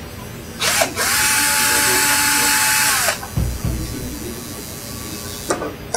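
Cordless drill-driver motor spinning up, running steadily for about two seconds and winding down as it backs out the screw holding the linkage to the DeWalt 788 scroll saw's upper rocker arm. A dull knock follows, and a few small clicks come near the end.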